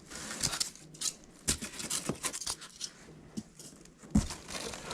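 Styrofoam packing and cardboard being handled out of a box: scattered scraping and scratching, with a few sharp knocks.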